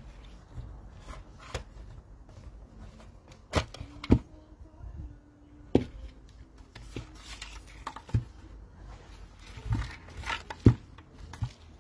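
A plastic bicycle helmet being handled and turned over: scattered knocks and clicks, with rubbing of its shell and straps. The loudest knocks come a little before 4 s, just after 4 s, and near the end.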